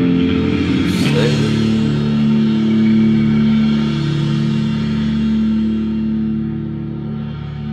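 Rock band music: a cymbal crash about a second in over a held guitar and bass chord that rings on and slowly fades.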